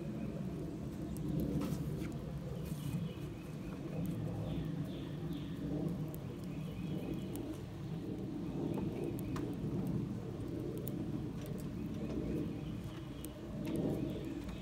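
Wood fire burning in a tin-can hobo stove, with many small crackles and pops over a low rumble. Birds call in the background.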